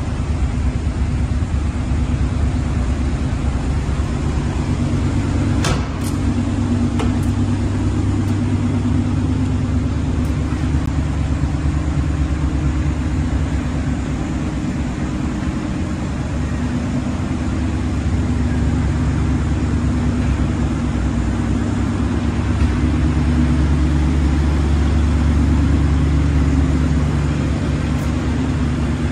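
V8 engine of a 1970 Dodge D-series pickup truck running steadily, with its note getting louder and heavier for a few seconds near the end.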